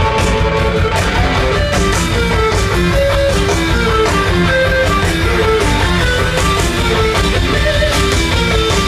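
Rock band playing live: electric guitar playing a fast repeating riff over bass and drums, loud and steady.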